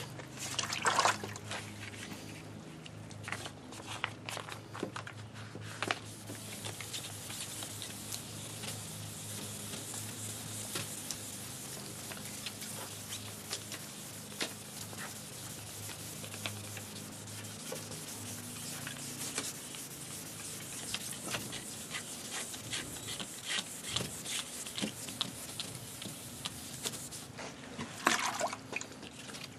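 Wet sanding a plastic headlight lens by hand with 2000-grit wet/dry sandpaper: a steady rubbing hiss with fine scratchy ticks. There are short louder bursts about a second in and near the end.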